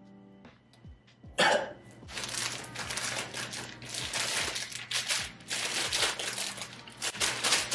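A brief loud sound about a second and a half in, then plastic packaging crinkling continuously as it is handled and opened.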